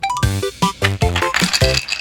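Upbeat background music with a steady thumping beat and short, bouncing pitched notes.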